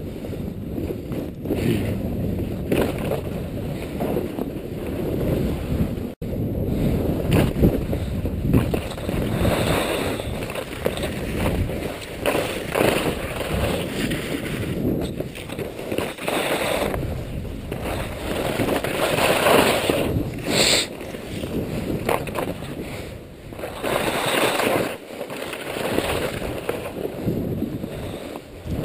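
Skis scraping and hissing over wind-crusted snow under a steady rumble of wind on the microphone, the scraping swelling every second or two as the skier turns.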